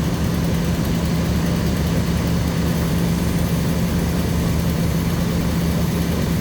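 Motorhome engine idling steadily with a low hum, under a continuous hiss of an aerosol cleaner being sprayed into the dash heater duct intake.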